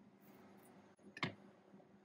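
Sandwich being assembled by hand on an open panini press: one light click a little over a second in, over a faint steady low hum.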